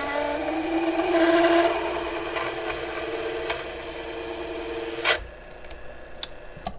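Taig lathe with a 3/8 inch twist drill enlarging an 11/32 inch hole, the bit chattering with a pitched, stuttering squeal. About five seconds in it stops abruptly with a sharp knock as the bit jams in the part, a jam the machinist puts down to too large a step up in drill diameter.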